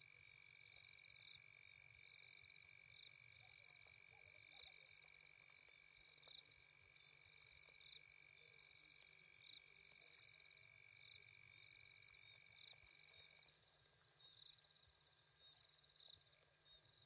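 Faint night-time chorus of insects, likely crickets, a continuous high pulsing trill. A steadier, lower note underneath cuts off about thirteen seconds in.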